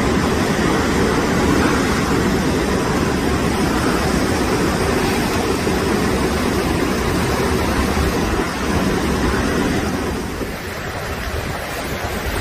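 Typhoon wind and heavy surf: a loud, steady rush of storm noise as waves break over a seawall, easing somewhat about ten seconds in.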